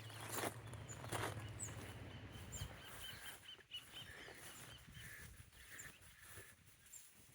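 Birds calling, including a quick run of short high chirps at about three a second and other scattered chirps and whistles. A couple of footsteps rustle through vegetation in the first second or so, and a low steady hum stops a few seconds in.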